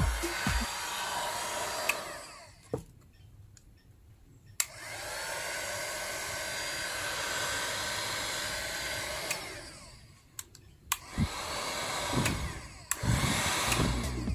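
Stearnel electric heat gun blowing, a steady rushing of hot air from its fan. It winds down about two seconds in, starts again with a click about four and a half seconds in and runs for about five seconds before dying away, then starts again after another click near the end.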